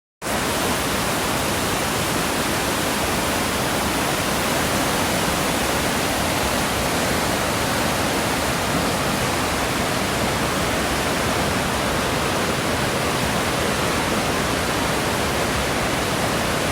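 Waterfall on a creek: a steady, loud rush of falling water, even and unbroken throughout.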